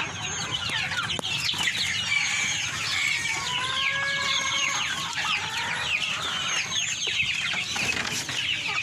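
A flock of chickens clucking and calling, with many short, high, quickly falling chirps throughout and a few longer held calls among them.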